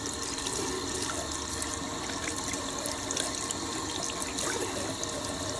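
Water running steadily, rinsing sediment gunk out of a sock used as a filter, with small splashes.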